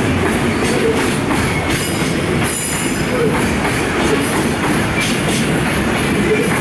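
Container wagons of a departing freight train rolling past on the rails: a steady, loud rumble and rattle of wheels on track, with a brief high wheel squeal about two and a half seconds in.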